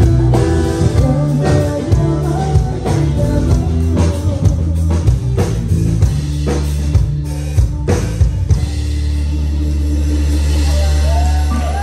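Live band music from a drum kit and keyboards, a lively tune with drum hits and shifting low notes, then, from about nine seconds in, a long held low note without drums.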